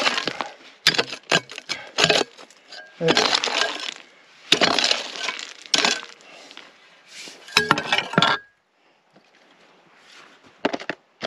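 A hand pick striking and scraping hard bedrock, chipping and breaking up rock in clusters of sharp knocks and gritty scrapes that stop about eight and a half seconds in.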